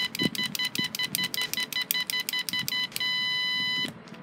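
Piezo buzzer on an Arduino water-bowl refill monitor beeping rapidly, about six short beeps a second, then giving one long beep of just under a second near the end.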